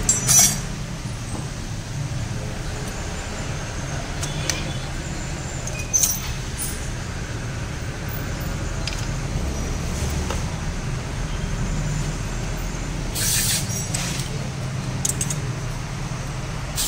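Steady low motor hum, like a vehicle engine running, with a few light clicks and a short hissing burst near the end.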